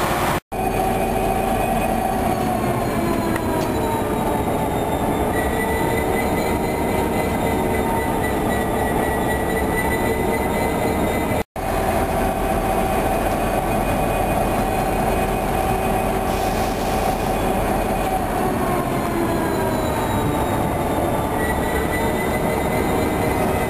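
Class 201 diesel-electric locomotive running with its EMD V12 two-stroke engine, a steady mechanical run with whining tones that sink in pitch and later rise again. The sound cuts out completely for a moment twice, about half a second in and near the middle.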